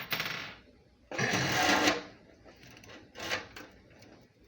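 Metal faucet mounting parts being handled, rattling and clicking in two bursts, a short one at the start and a longer one about a second in, with a smaller rattle near the end.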